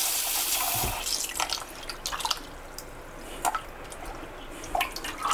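Kitchen tap running into a glass bowl of water in a stainless steel sink, shut off after a second or so. Then water splashes and drips as hands squeeze and knead wet wool yarn in the bowl to rinse out excess dye.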